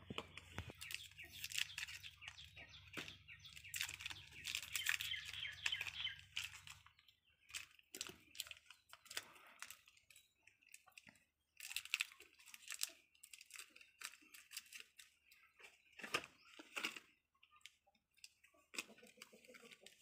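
Crinkling and tearing of the wrapper of a pack of M-seal epoxy putty as it is opened and handled, in irregular crackly bursts. They are dense at first, then come in scattered clusters.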